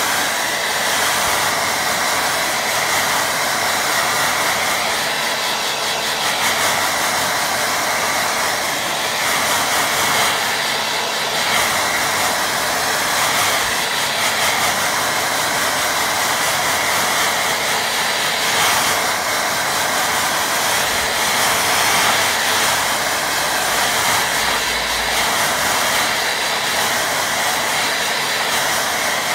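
Handheld hair dryer running steadily, a loud even rush of air with a thin whine over it, blown across a wet watercolour painting to dry the paint.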